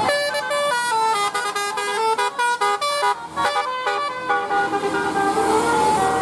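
Bus telolet horn (Basuri-type musical horn) playing a tune: a quick run of short stepped notes, then longer held notes near the end.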